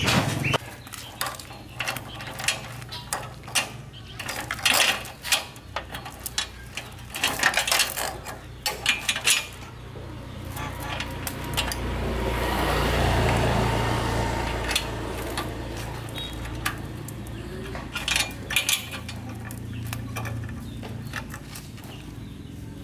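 Steel roller drive chain clinking and rattling in clusters of sharp metallic clicks as it is handled and fitted onto the rear sprocket. A low rushing rumble swells and fades around the middle.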